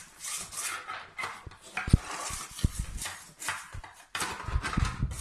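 A pug eating from a foil food tray, with repeated wet licking and chewing noises and a few sharp knocks as the tray is nosed along the tile floor.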